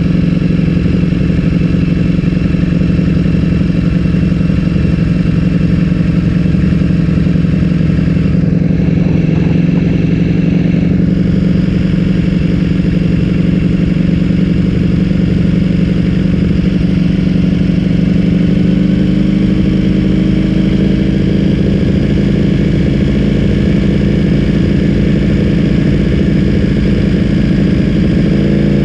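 Ducati Streetfighter V4S's 1103 cc V4 engine running through an Akrapovic full-system exhaust, holding a steady note. Its pitch rises gently about two-thirds of the way in.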